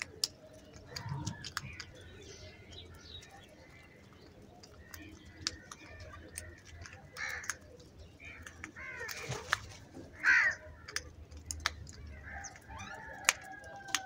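House crows feeding as a flock, cawing now and then, with the loudest call about ten seconds in. Sharp ticks of beaks pecking grain off concrete run throughout.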